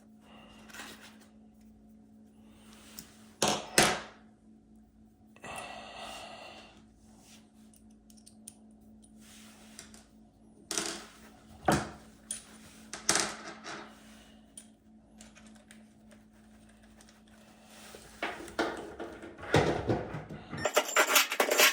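Hand tools clicking and knocking against a clothes dryer's sheet-metal cabinet as screws are worked out, in short scattered bursts with quiet gaps between, and a denser run of clicking near the end, over a faint steady hum.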